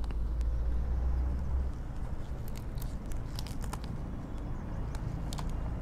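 Spinach leaves being snapped off their stems by hand: a scatter of small crisp snaps and leaf rustles starting about halfway through, over a low steady rumble that is heavier in the first second or two.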